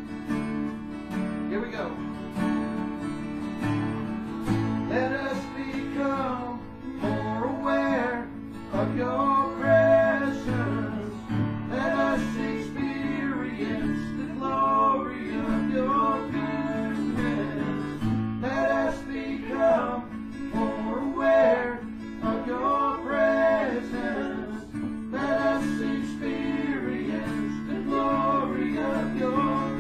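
Three acoustic guitars strumming a slow worship song, with men's voices singing along in harmony over the chords from a few seconds in.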